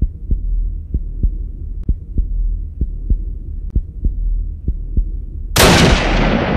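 Added film soundtrack: a low humming drone with a heartbeat-like thump about three times a second, then a sudden loud crash about five and a half seconds in that fades slowly.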